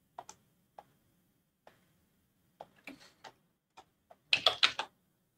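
Sparse, quiet clicks of a computer mouse and keyboard, then a quick run of louder key presses about four and a half seconds in.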